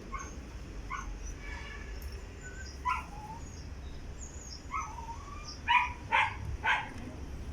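A dog yipping and whimpering in short, high calls, with three louder yips close together near the end.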